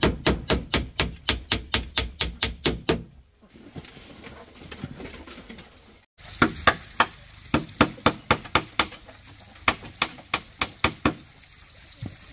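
Hammer striking bamboo: a fast, even run of taps, about five a second, that stops about three seconds in. After a pause comes a second run of louder, less regular hammer strikes on bamboo.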